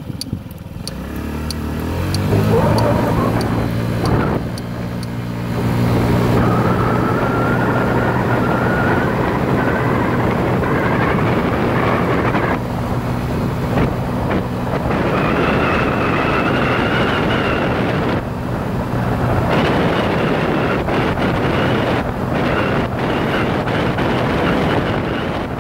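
Motorcycle engine pulling away, rising in pitch over the first few seconds, then running at a steady cruising speed, with heavy wind rushing over the microphone.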